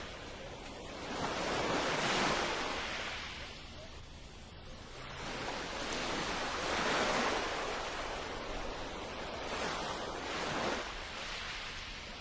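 Ocean waves washing in: a wide rushing noise that swells and fades three times, each surge lasting a few seconds.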